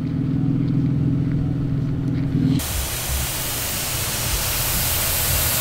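Steady low hum of an idling truck engine, cut off abruptly about two and a half seconds in by a loud, even hiss of rushing air.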